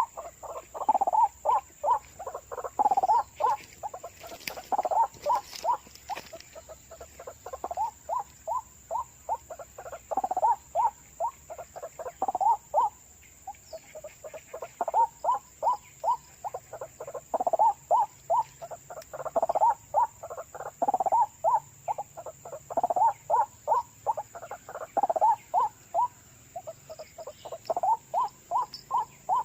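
White-breasted waterhen calling: rapid repeated croaking notes in runs of a second or two, starting up again and again.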